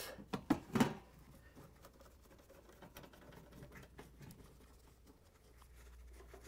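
Quarter-inch nut driver turning sheet-metal screws into a refrigerator's metal rear access panel: a few sharp clicks and knocks in the first second, then faint scratchy ticking as the screws are driven.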